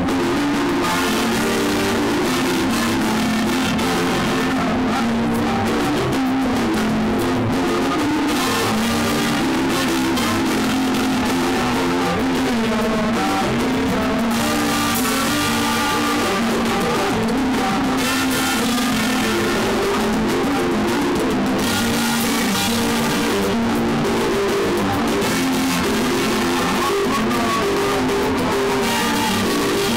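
Live band music, with guitar prominent.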